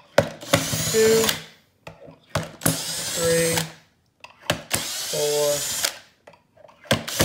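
Cordless drill with a screwdriver bit backing screws out of a robot vacuum's plastic underside: three short whirring runs of about a second each, and a fourth starting near the end.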